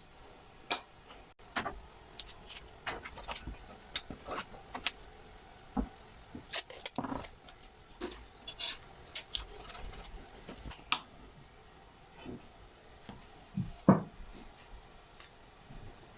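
Small wooden pieces being handled and worked by hand: irregular light clicks, taps and a little rubbing, with one louder knock near the end.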